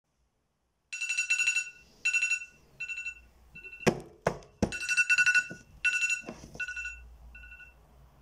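A smartphone alarm beeping in repeated short bursts of an electronic tone, starting about a second in and growing shorter and fainter near the end. A few knocks in the middle, the loudest about four seconds in, as a hand fumbles for the phone on a bedside table and picks it up.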